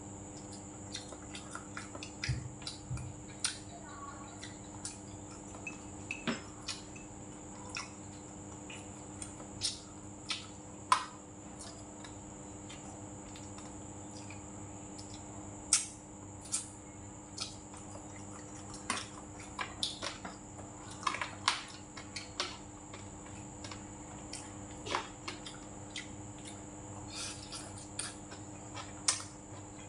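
Close-miked eating: irregular wet mouth clicks and smacks of chewing, with light clinks of a spoon and chopsticks against a metal rice bowl. A steady high-pitched whine and a low hum sit underneath.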